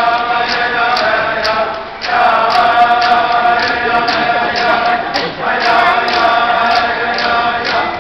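Iñupiaq drum-dance song: a chorus of voices singing in unison over steady strokes on qilaut frame drums, about two beats a second. The singing breaks off briefly about two seconds in and again just past five seconds, while the drumbeat carries on.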